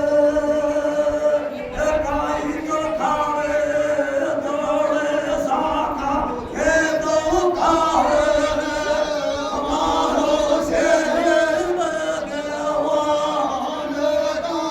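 Male voices singing a folk devotional song in a chanting style, with long held notes.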